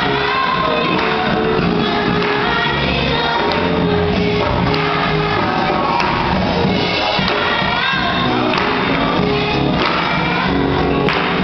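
Live gospel singing in a church: a woman's lead vocal with other voices joining, over steady instrumental accompaniment.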